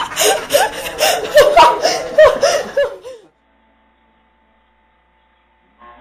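A person laughing in a quick run of short rising-and-falling bursts, which stops about three seconds in and is followed by dead silence.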